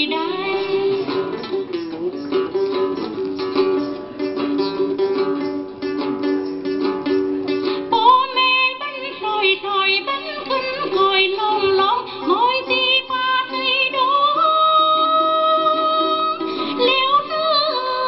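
Tày folk song: a đàn tính (long-necked plucked lute) played in quick repeated plucks, joined about eight seconds in by a woman singing long, sliding held notes.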